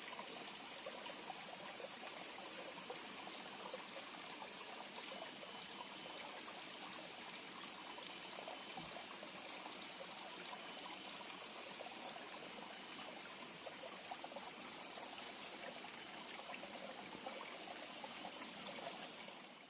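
Small stream flowing and trickling steadily, with a thin high tone in the first second.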